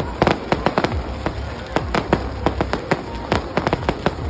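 Fireworks display with shells bursting in rapid, irregular bangs and crackles, several a second, over a continuous low rumble.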